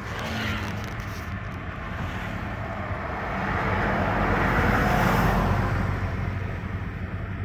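Steady road and engine noise heard from inside a moving car. In the middle a whoosh swells and fades as a large vehicle passes close alongside.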